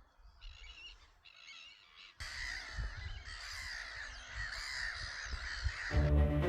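Birds calling: a couple of short calls at first, then a denser chorus of calls with a low rumble beneath from about two seconds in. Music comes in near the end.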